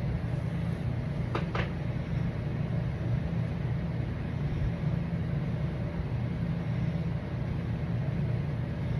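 Steady low drone of an idling engine, with two light clicks about a second and a half in.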